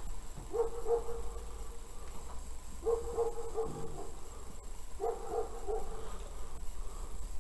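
A dog barking in short runs of three or four quick barks, a run about every two seconds, three times.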